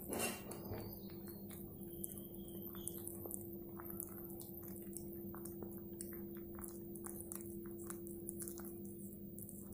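A kitten chewing and gnawing on a scrap of food: a steady run of small clicks and crunches, with a brief louder rustle at the start, over a steady low hum.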